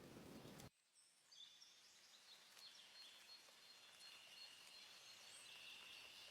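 Faint outdoor ambience that cuts in abruptly less than a second in after a louder rustling noise. Thin, steady high-pitched tones run through it, one of them held longer in the second half.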